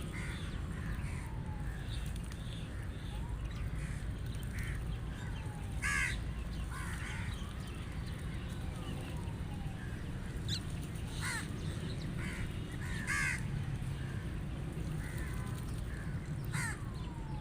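Rooks cawing: four loud, harsh caws spread through the stretch, with fainter calls in between. A steady low rumble runs underneath.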